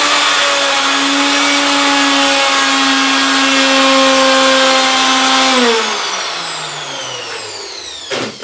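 Einhell TC-RO 1155 E 1100-watt router running with a steady high whine at a reduced speed setting while routing the edge of a wooden board. About six seconds in it is switched off and winds down, its pitch falling. A short knock comes near the end.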